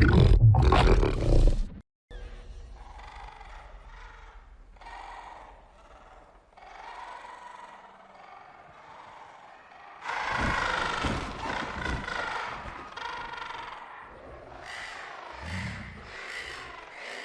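Giant-monster roar sound effects from the Monsterverse films. A loud burst fills the first two seconds, then comes a string of drawn-out creature roars and calls with a pitched, wavering tone, the loudest about ten seconds in.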